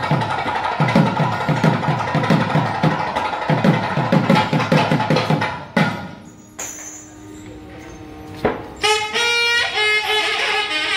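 Kerala temple ritual drumming: a fast run of drum strokes, which stops abruptly about six seconds in. A pitched melody instrument plays wavering held notes in the lull, and the drumming starts again near the end.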